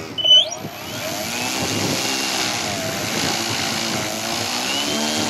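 Radio-controlled model airplane motor running, its pitch wavering slowly up and down over a steady rushing hiss. About a third of a second in, a short, loud high-pitched tone slides sharply upward.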